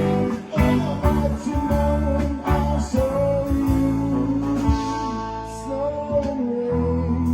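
Live band playing an instrumental passage: a guitar line with bending notes over sustained bass, with occasional drum or cymbal hits.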